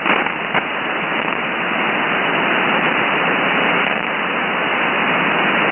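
Steady hiss of band noise from an HF ham transceiver's receiver in SSB mode, no station transmitting, heard through the narrow voice passband that cuts off above about 3 kHz. A couple of faint crackles come near the start.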